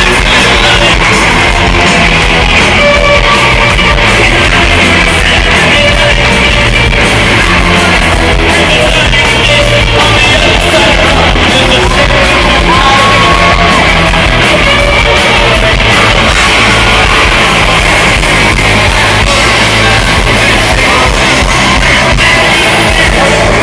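Rock band playing live at full volume, with electric guitars, drums and shouted vocals, heard from among the audience.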